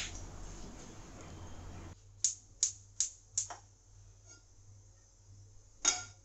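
A gas hob's igniter clicking four times in quick succession, about 0.4 s apart, as a burner is lit. Near the end comes a short knock as a metal pan is set down on the burner grate.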